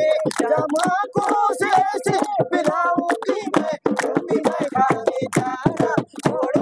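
Folk singing in a high, wavering voice over fast, sharp percussive beats, several a second.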